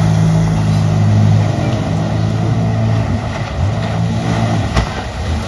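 Jet ski engine running at speed, a steady drone that wavers in pitch and eases off after about a second and a half.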